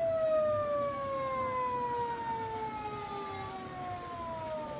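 Police-car siren wailing, its pitch falling slowly and steadily.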